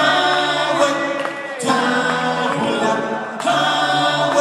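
A band's male voices singing a cappella in close harmony: a chant of long held chords that change about every one and a half to two seconds, without instrumental backing.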